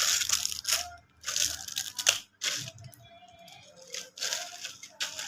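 Plastic packaging being torn open in several short rips, with a sharp click about two seconds in.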